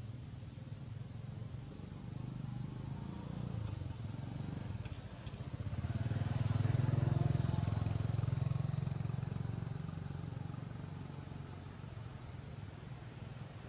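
A motor vehicle's engine droning low, growing louder about six seconds in and then fading away as it passes.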